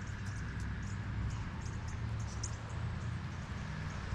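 Birds chirping, many short high calls in quick succession, over a steady low hum.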